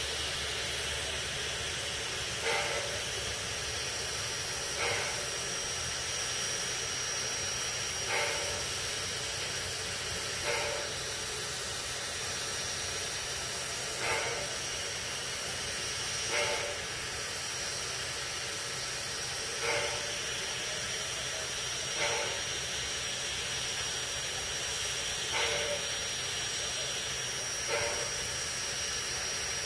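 Steam locomotive Robert Dollar Co. No. 3 standing with steam hissing steadily from around its cylinders, broken by a short, sharper pulse every two to three seconds.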